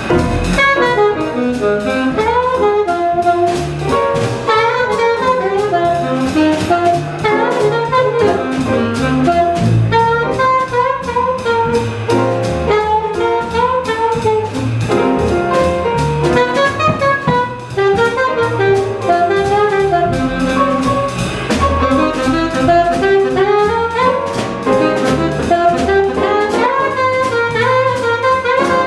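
Live jazz quintet playing at a fast tempo: an alto saxophone leads with a quick-moving melodic line over piano, upright double bass and a drum kit's cymbals and drums.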